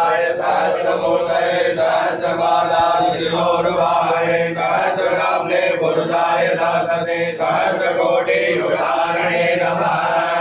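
Hindu mantras being chanted aloud as one steady, continuous recitation in long sustained phrases with short breaks between them.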